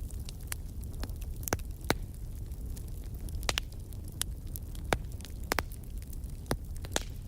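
Wood fire burning in a fireplace: a steady low rumble of the flames with irregular sharp crackles and pops from the burning logs, a few of them louder than the rest.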